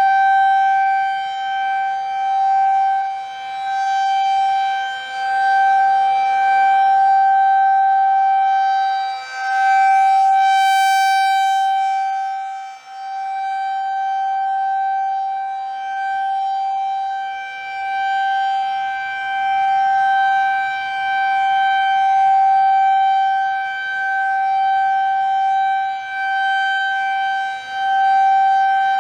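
Federal Signal 2001 rotating tornado siren sounding a steady single tone at full pitch. It swells and fades in loudness every few seconds as the rotating horn sweeps toward and away.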